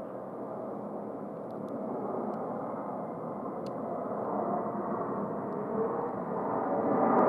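Jet engine noise of an Airbus A220 airliner, getting steadily louder as the aircraft draws nearer.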